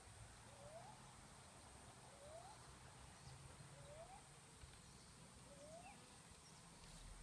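Near silence, with a faint, short rising call repeated four times, about every second and a half.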